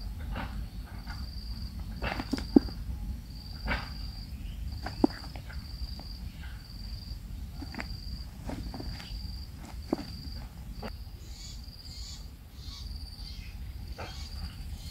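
A faint, short high chirp repeats steadily a little under a second apart, with scattered light taps and scratches from kingfisher chicks shifting on the nest litter.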